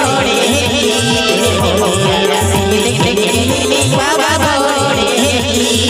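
Loud live band music in the rodali style: male voices singing through microphones over a melody line and a steady, driving drum beat with rattling percussion.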